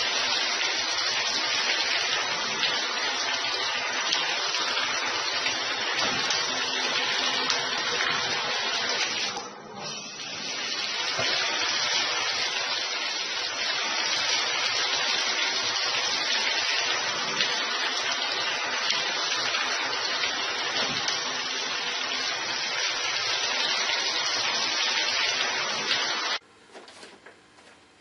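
Water running steadily from a tap into a bathtub, with a short dip about ten seconds in. It cuts off suddenly near the end.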